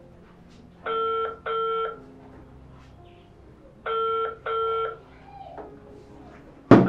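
Mobile phone ringing: two short rings in quick succession, the pair repeating about every three seconds. A loud sharp knock comes near the end.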